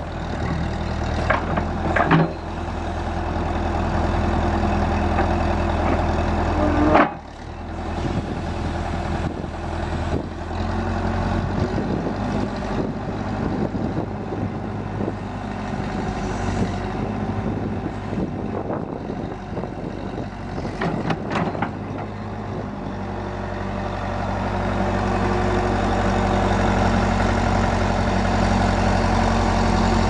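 Case 580C backhoe's four-cylinder diesel engine running, with a few sharp knocks, the loudest about seven seconds in. The engine sound thins through the middle and comes back fuller over the last several seconds.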